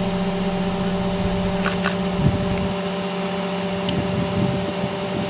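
Truck-mounted crane's diesel engine running with a steady hum while the crane holds a load aloft. A single knock sounds a little over two seconds in.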